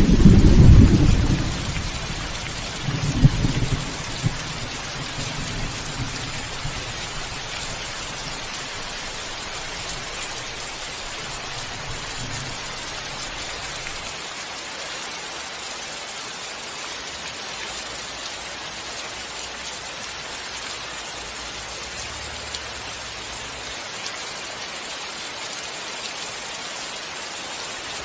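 Thunderstorm: a loud clap of thunder rolls at the start, a second smaller rumble follows about three seconds in, and the low rumbling dies away over the next ten seconds. Steady rain hisses throughout.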